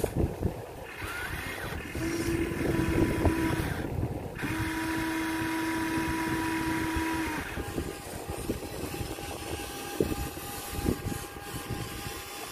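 Small electric motors and gearboxes of a Huina 1593 remote-control excavator whining as it works the bucket and swings its upper body round. A steady whine comes twice, about a second and a half and then about three seconds, before giving way to a fainter, higher whine, over scattered clicks and crackles.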